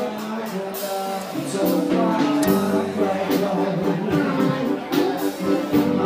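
Live band playing a song, with singing over guitar and drums.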